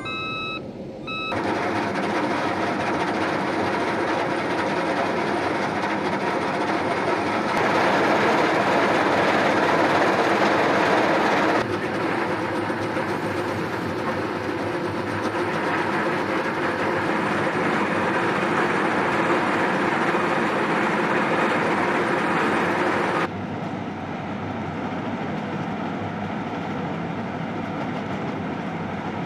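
Heavy diesel equipment working, with a Caterpillar compact track loader's wheel saw attachment grinding through concrete pavement: a dense, steady mechanical clatter. It changes abruptly in loudness and character several times.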